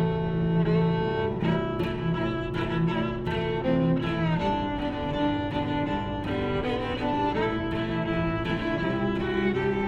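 Background music with bowed strings, cello and violin, playing sustained notes that change every second or so.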